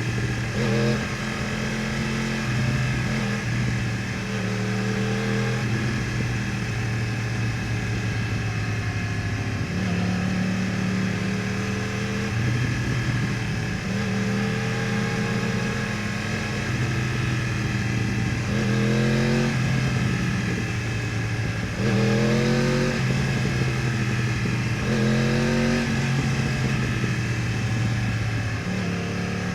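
2015 Yamaha R1's crossplane inline-four through an Akrapovič exhaust, heard from the rider's position under way. The engine note rises in several short pulls as it accelerates, with steadier cruising stretches between.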